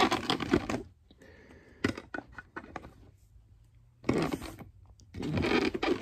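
Plastic packaging rustling and crinkling in bursts, with a run of quick sharp clicks between them, as the parts of a toy lightsaber are snipped free of their box.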